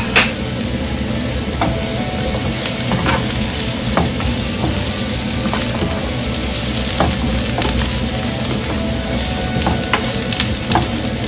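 Vegetables sautéing in oil in a nonstick frying pan, sizzling steadily while a spatula stirs them, with frequent small scrapes and taps of the spatula on the pan. Two sharp knocks come right at the start.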